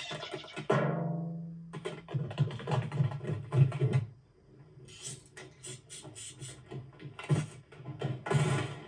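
Music with quick percussive beats and scratch-like clicks. About a second in, a loud tone slides down in pitch.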